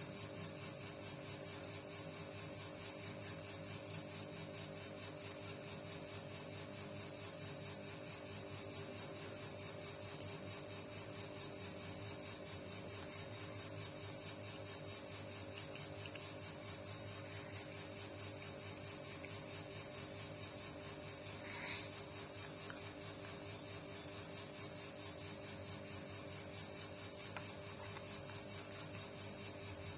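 A small motor running steadily, an even hum with a fast regular rhythm, with one short high squeak about two-thirds of the way through.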